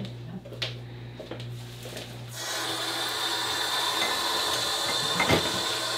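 Kitchen tap turned on about two and a half seconds in, water then running steadily into a stainless steel sink as a dishcloth is rinsed, with one sharp knock near the end.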